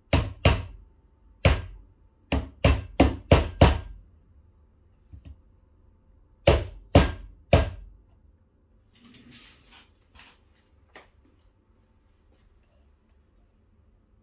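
An espresso portafilter knocked repeatedly against a stainless knock box to dump the spent coffee puck: eight sharp knocks, the last five in quick succession, then after a short pause three more. A faint scraping rustle follows a little later.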